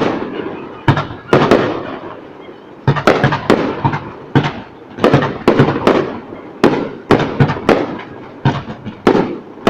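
Aerial fireworks shells bursting in quick succession: a dozen or so sharp bangs, one or two a second, each trailing off in a rolling echo, with a brief lull about a second in.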